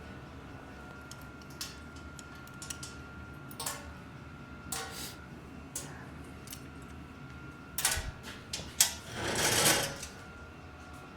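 Mountain bike chain and drivetrain being worked back onto the sprockets: scattered metallic clicks and clatter, then a longer rattling run of about a second near the end.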